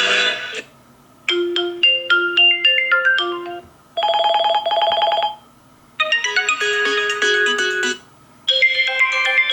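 Vivo Y52 5G ringtones previewed one after another. Each is a short electronic melody lasting about two seconds, with brief pauses between them. A fast trilling ring comes about four seconds in.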